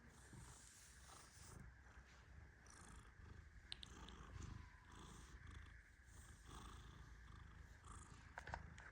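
Persian cat purring faintly in its sleep: a low rumble with a soft breathy hiss that swells and fades about every two seconds.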